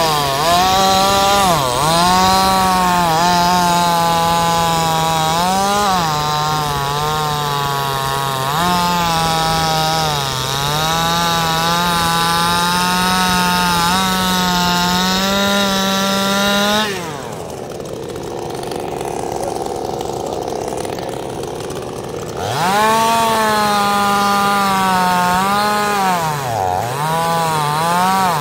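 Gasoline chainsaw ripping lengthwise along a log, running at high revs under load with brief dips in pitch as the chain bogs in the wood. About two-thirds through it drops suddenly to a low idle for about five seconds, then revs back up and cuts again.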